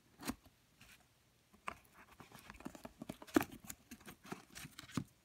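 Cigars being handled by hand in their paper-lined box: fingers brushing and shifting the cigars and rustling the paper, an irregular scatter of small rustles and taps with a sharper click about three and a half seconds in and another near the end.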